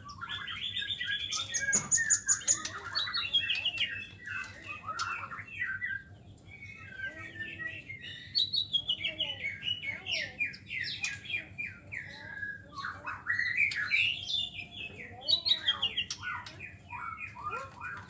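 White-rumped shama singing a long, varied song of rapid whistled phrases and trills, with a few short pauses.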